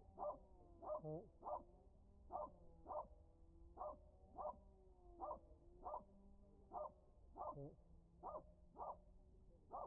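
A small dog barking repeatedly: short, high yaps in a steady rhythm, about one and a half a second, often in pairs.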